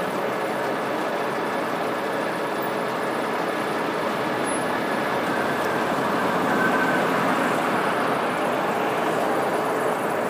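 Fuel tank truck running steadily while it pumps gasoline through its delivery hose into a gas station's underground tank: a continuous mechanical drone with faint steady tones.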